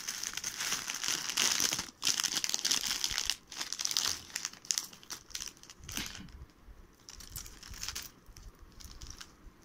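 Clear plastic packaging and bubble wrap crinkling as they are handled and pulled open. The crackle is loudest and nearly continuous over the first four seconds, with two brief pauses, then turns into lighter scattered rustles.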